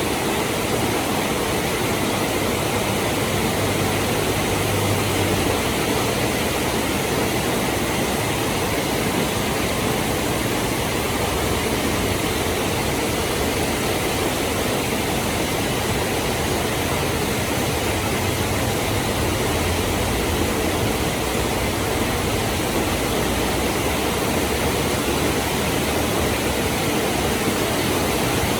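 Heavy rain pouring down in a steady, dense hiss. A faint low rumble swells briefly twice under the rain.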